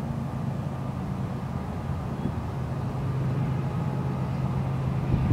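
Steady low engine hum of an approaching freight train's diesel locomotives, heard from a distance and slowly growing louder.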